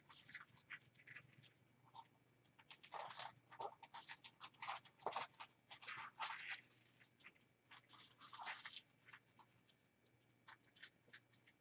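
Faint rustling and crinkling of ribbon being handled: irregular clusters of small crackles, busiest in the middle.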